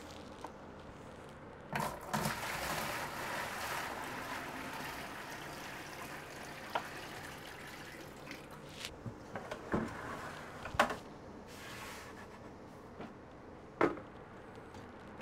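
Tap water running and splashing into a plastic bucket in a utility sink as the bucket is rinsed out, starting about two seconds in and fading away over the next several seconds. Then a few sharp knocks of plastic buckets being handled and set down on the counter.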